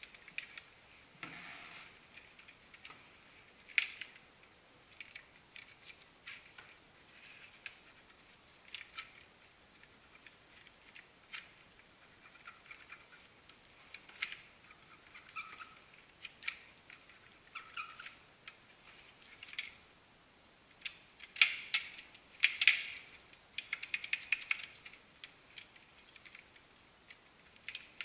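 Handling of a copier's plastic paper feed unit while its rollers are wiped with a cloth: scattered light clicks, taps and short scrapes of plastic parts. A quicker, louder flurry of clicks comes about three quarters of the way through.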